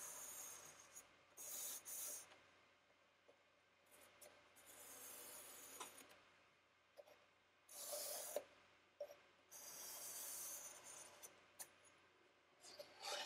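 Charcoal pencil scratching on sketchbook paper in a series of faint, short strokes with brief pauses between them.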